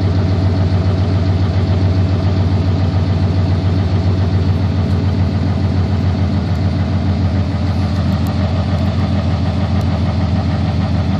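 A 1990 Ford F-150's fuel-injected 302 (5.0-litre) V8 idling steadily, an engine the owner calls really tired.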